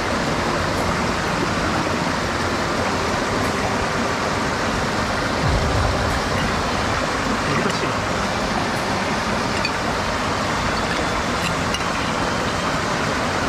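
Mountain stream water rushing steadily, a constant full hiss-like roar, with one brief low thump about five and a half seconds in.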